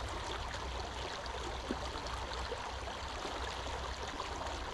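Small, shallow creek running over a rocky riffle: a steady rush and babble of water.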